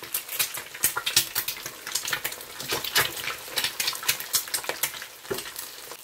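Eggs frying in plentiful, very hot extra virgin olive oil: a steady sizzle with frequent sharp crackles and pops of spitting oil as the whites puff and bubble.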